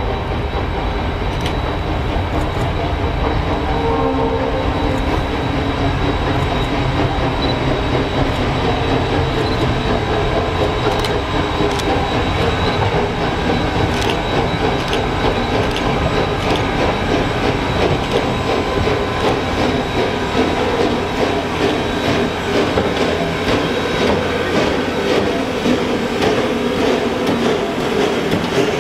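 Western Maryland 1309, a 2-6-6-2 Mallet steam locomotive, working hard at the head of a passenger train. Its exhaust beats pulse evenly and grow louder as it approaches and draws close near the end, with clicking from the wheels and rails.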